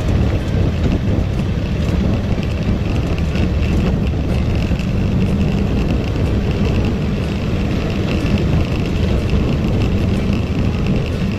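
Side-by-side UTV engine running steadily: a constant low rumble with a thin steady whine above it.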